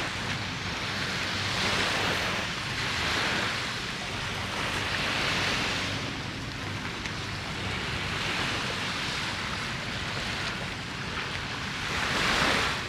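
Small sea waves washing ashore, swelling and fading every couple of seconds, over a low rumble of wind on the microphone.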